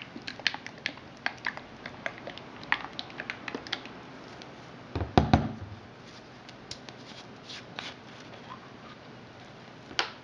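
Gloved hands handling small objects on a cutting mat: a quick run of light clicks and rustles, then a louder knock about five seconds in, as of something set down, and one more sharp click near the end.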